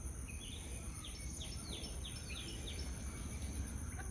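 A bird calls a quick series of about seven short falling notes, a few per second, that stop about three seconds in. Behind it are a steady high insect drone and a low outdoor rumble.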